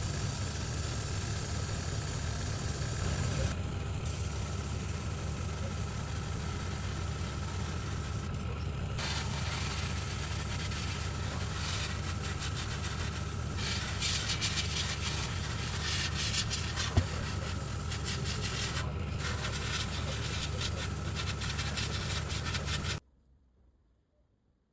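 A small motor running steadily with a hiss, stopping abruptly near the end.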